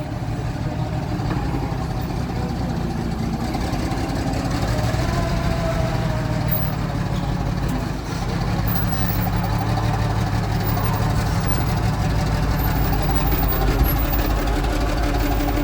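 Forklift engine running steadily with a low, even hum, briefly dipping about eight seconds in.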